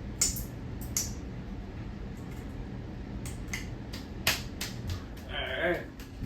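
Hampton Bay Huntington III 52-inch ceiling fan running with a steady low motor hum, broken by a few sharp clicks.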